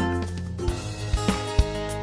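Background music with a steady beat: a bass drum marks the beat from about a second in under held instrument tones.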